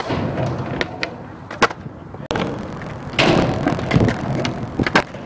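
Skateboard wheels rolling on pavement, with several sharp clacks of the board. About two seconds in the sound cuts abruptly to another take, with more rolling and board impacts.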